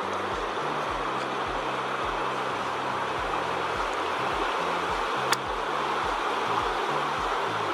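Steady rush of creek water, with the bass line and regular beat of background music underneath. A single sharp click a little past five seconds in.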